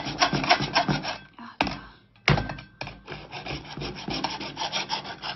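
A hand saw rasping through the hard shell of a large cooked crab in rapid back-and-forth strokes. The strokes break off about a second in, with a couple of sharp knocks in the pause, then start again.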